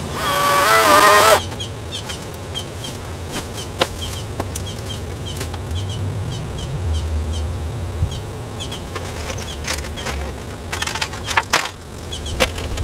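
A 24-volt battery chainsaw with a 12-inch bar runs for about a second and a half with a high motor whine, then cuts off suddenly. After it, faint short high chirps repeat a couple of times a second, and a few sharp clicks come near the end.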